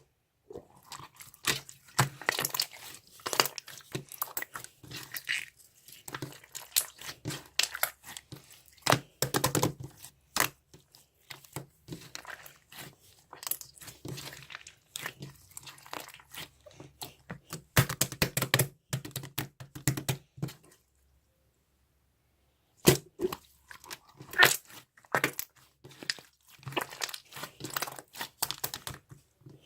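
Close, irregular crinkling and crackling with crunchy clicks, like something being handled, squeezed or torn, with a pause of about two seconds some way past the middle.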